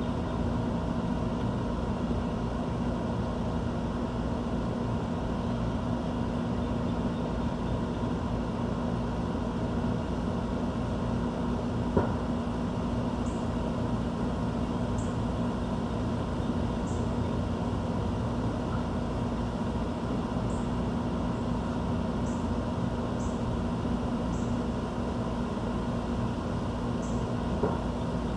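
Steady low mechanical hum and rumble of urban background noise. About nine faint, short, high bird chip notes come now and then through the second half, with a single click near the middle.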